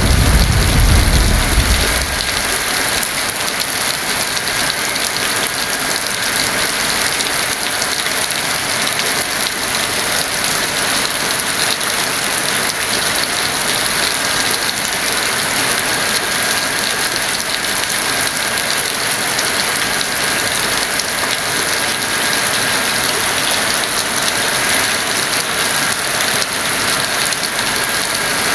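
Heavy rain falling as a steady, dense hiss. A deep rumble of thunder dies away about two seconds in.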